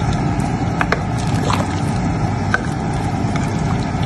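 A spoon stirring soup in a stainless-steel pot, giving a few light clicks against the pot over a steady low rumble.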